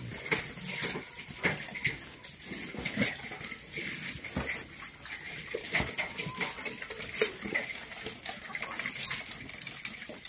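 Pigs and ostriches eating from metal feed bowls: irregular clinks and knocks of snouts and beaks against the metal, with the pigs chewing and grunting.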